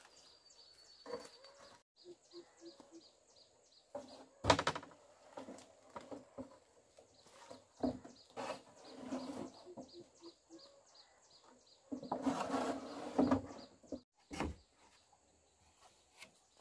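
Corrugated roofing sheets knocking and scraping as they are handled and laid onto a coop frame: a sharp knock about four and a half seconds in, more knocks later, and a longer rustling scrape about twelve seconds in. A bird chirps over and over in the background.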